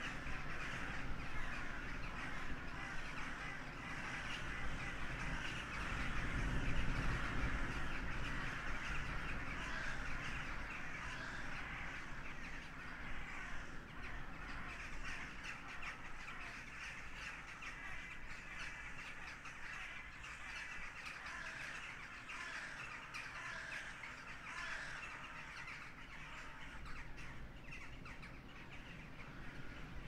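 A large flock of crows cawing together in a dense, continuous chorus of overlapping calls. Low wind rumble on the microphone runs underneath, strongest about six to eight seconds in.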